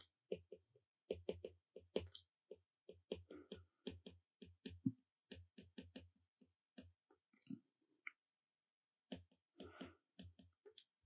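Stylus tapping and clicking on an iPad's glass screen during handwriting: a quick, irregular run of short taps with a pause of about a second a little before the end.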